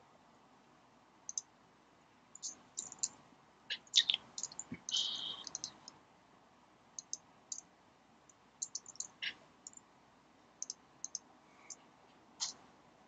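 Typing on a computer keyboard: irregular key clicks in short clusters, with pauses between them.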